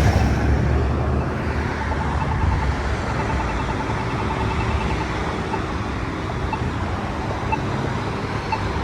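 Steady road traffic passing close by, with faint repeated electronic ticks from Polara iNS2 accessible pedestrian push-button units, a quick run of them in the middle.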